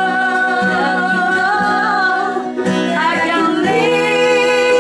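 A woman singing long, wavering held notes of a slow pop ballad, with acoustic guitar accompaniment.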